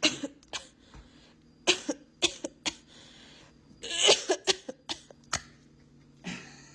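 A series of short, sharp coughs or hacks, irregularly spaced, with a longer, harsher one about four seconds in.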